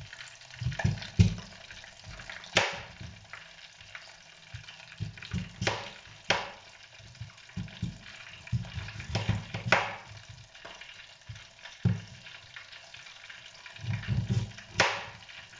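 A knife cuts through a raw sweet potato onto a plastic cutting board, making irregular dull thuds and a handful of sharp knocks. Underneath is the steady sizzle of breaded prawns deep-frying in hot oil in a deep fryer.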